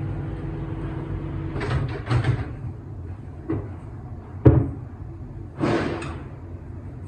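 Kitchen handling sounds while pap is being made: a few brief scrapes and rustles, then a sharp knock like a cupboard door or a utensil striking, and another scrape. A low steady hum runs underneath.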